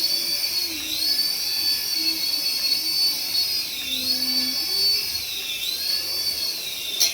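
A remote-control toy's small electric motor whining at a high pitch, the pitch dipping briefly four or five times. A sharp click near the end.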